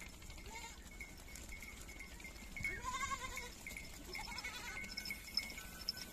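Goats in a moving herd bleating, one clearer bleat about three seconds in and fainter calls around it.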